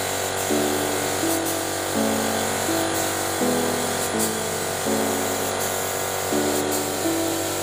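Background music: a repeating melody of held notes stepping in pitch, over a steady beat.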